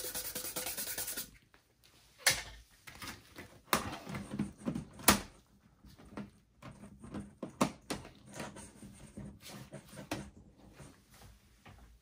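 A small brush sweeping dust off a Dell Latitude E5450's bottom cover, stopping about a second in. Then scattered sharp clicks and knocks as the cover is handled and pressed back onto the laptop base.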